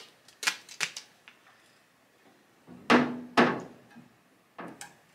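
Duct tape being pulled off its roll: a few short ticks, then two loud rips about three seconds in, and two shorter ones near the end.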